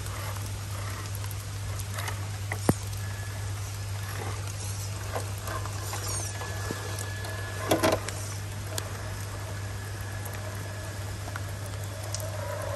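Steady patter of rain and drips in a wet forest over a steady low hum, with two sharp knocks, one about three seconds in and one about eight seconds in, and a few faint high chirps.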